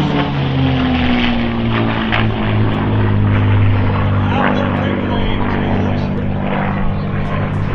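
Rolls-Royce Merlin V-12 engines of two P-51D Mustangs running as the pair flies past, the pitch falling over the first second and a half, then holding steady and low.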